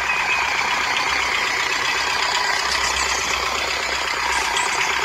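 Engine running steadily as a toy tractor drives, an even unbroken running sound with a faint steady whine.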